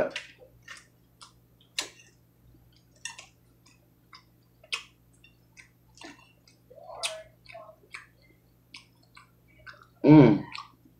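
Close-miked chewing of crunchy raw salad: irregular crisp crunches and mouth clicks, with a short voiced hum about ten seconds in. A steady low hum runs underneath.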